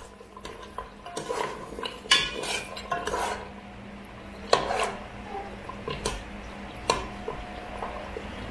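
A metal spoon stirring oxtail in sauce inside a metal pressure cooker pot, scraping and clinking against the pot's sides and bottom. There are several sharp clinks, about five, between the scrapes.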